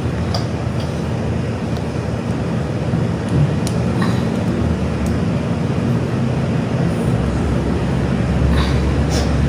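A steady low rumble, with a few light clicks from hands fitting parts around a scooter engine's carburettor.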